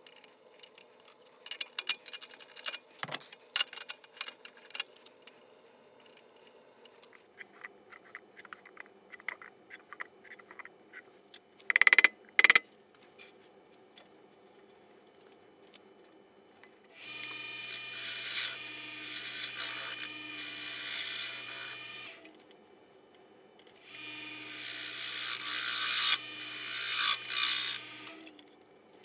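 Wood lathe shop sounds played back fast: quick clicks and knocks of a chuck and a wooden bowl blank being handled, with two loud knocks about halfway. Then the lathe runs twice, for about five seconds and then four, with a low motor hum under loud hissing, scraping noise.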